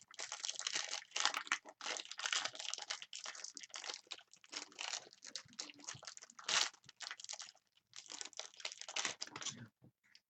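Wrapper of an Absolute Basketball trading card pack crinkling and tearing as it is opened by hand, in an irregular run of crackles and rustles that pauses briefly near the end.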